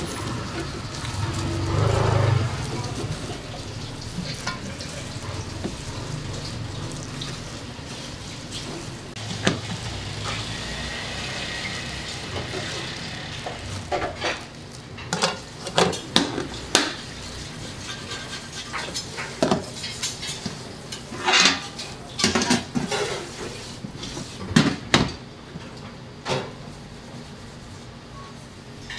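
Knocks and clinks of a perforated stainless steel bowl and plastic containers on a steel worktable as ingredients are tossed by hand, the sharp clatters coming in quick clusters in the second half. A steady hiss runs under the first half.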